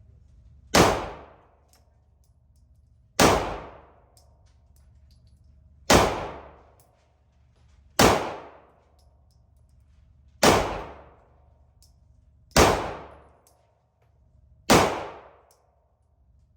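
Seven single shots from an everyday-carry handgun, fired slowly about two seconds apart. Each shot is a sharp crack followed by a ringing echo.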